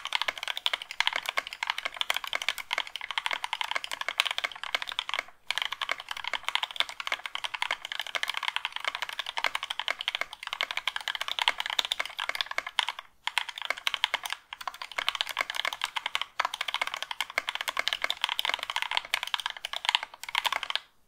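Fast, continuous typing on a 60% mechanical keyboard fitted with Thic Thock Marshmallow linear switches (nylon housing, progressive spring), lubed with Krytox 205g0: smooth keystrokes free of spring ping and scratchiness, with a few brief pauses.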